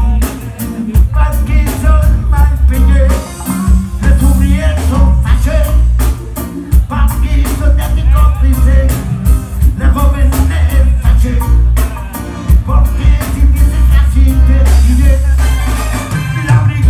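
Live rock band playing a song: a lead vocal over electric guitar, keyboards, bass and drums. The bass is heavy and boomy, and drum hits keep a steady beat.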